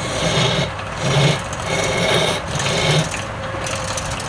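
Wood lathe running while a turning tool cuts the spinning wood in repeated passes, the cutting hiss swelling and fading about once a second over a steady motor hum.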